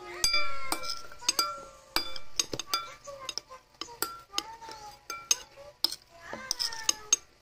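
Metal spoons and forks clinking against bowls at the table, many short sharp clinks each with a brief ringing tone, at irregular intervals.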